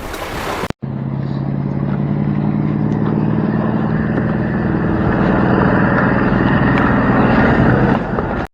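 An engine running steadily with a low, even note, slowly growing louder, then cutting off suddenly.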